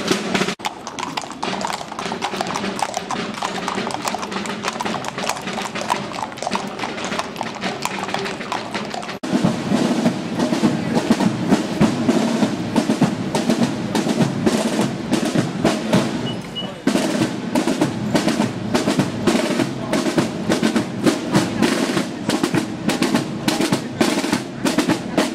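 Marching band music with drums beating a steady march: snare drums and a bass drum under brass instruments. The music changes abruptly about nine seconds in and again about seventeen seconds in.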